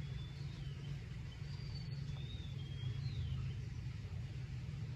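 Quiet outdoor background: a steady low rumble with a few faint, thin bird chirps high above it.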